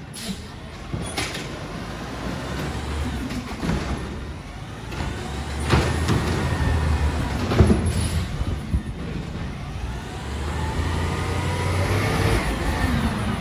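Autocar ACX garbage truck's engine revving as it drives the hydraulic Amrep automated side-loader arm, which lifts a curbside cart overhead and dumps it. Two sharp bangs come near the middle as the cart is emptied. The engine revs up again near the end as the truck pulls ahead.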